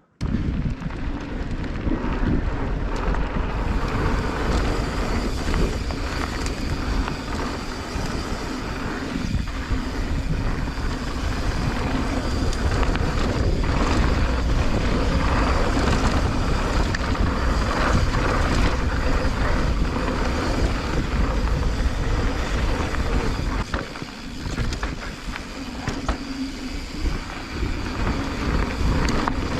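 Mountain bike riding fast down a dry dirt trail: wind on the microphone with tyres rolling over the dirt and the bike clattering over bumps. The noise eases briefly about three-quarters of the way through.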